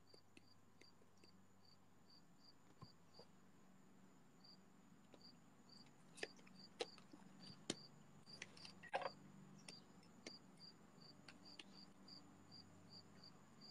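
Faint, regular cricket chirping, about three chirps a second. A few soft clicks come in the middle as the tarot cards are handled.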